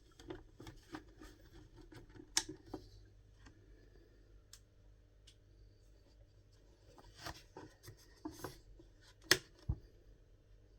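Scattered light clicks and taps of small objects being handled, with the sharpest click a little over nine seconds in, over a faint low hum.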